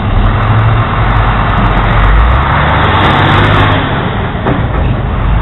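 Road traffic passing close by: a motor vehicle's engine rumble and tyre noise, swelling about two to three seconds in and easing off again.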